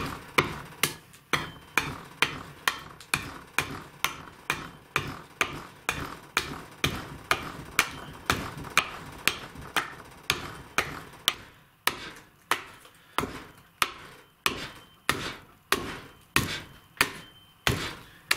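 Hatchet chopping into the end of a wooden board, hewing off a bevel: sharp, rhythmic chops about two a second, with a short break about twelve seconds in.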